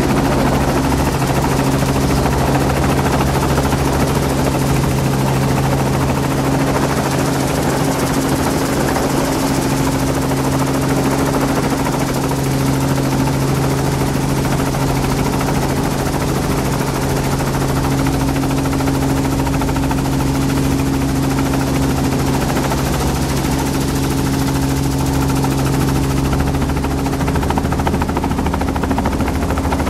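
Helicopter engine and rotor running steadily, heard from inside the cabin: a constant deep hum with a rapid, even beat of the rotor blades.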